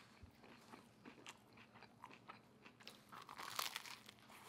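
Quiet chewing of a ciabatta sandwich, with faint crunching and mouth clicks, and a louder crunchy bite into the bun's crust about three seconds in.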